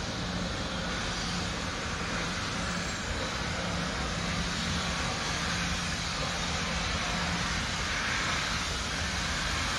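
Steady hiss and rumble of a steam locomotive standing just inside the tunnel, with a low hum that fades near the end.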